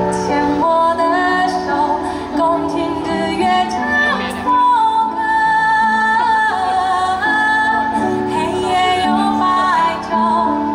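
A woman singing a slow melody with long held notes over instrumental backing music.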